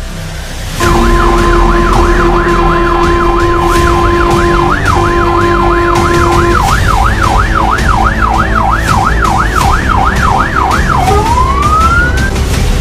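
Fire engine siren on a fast yelp, sweeping up and down about two and a half times a second over the truck's engine and road rumble. A steady horn note is held over it for the first half, with a short break partway through. Near the end the siren switches to a slower wail, rising in pitch.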